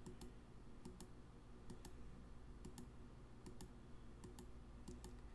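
Faint clicking of a computer mouse, about seven double clicks a little under a second apart, over near silence, as the player is skipped through the video.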